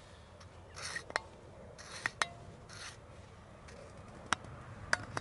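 Gloved hands twisting and handling the pump fitted to a red MSR liquid-fuel bottle: three short rasping rubs about a second apart, then scattered sharp clicks of plastic and metal.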